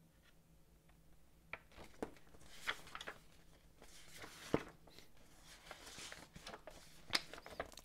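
Pages of a paper booklet being turned and handled: soft rustling with a few sharp paper snaps, starting about a second and a half in, the loudest snap about four and a half seconds in.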